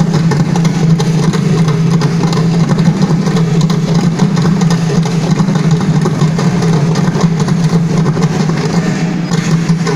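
An ensemble of six mridangams, South Indian double-headed barrel drums, played together in a fast, dense, unbroken run of strokes over a steady low hum.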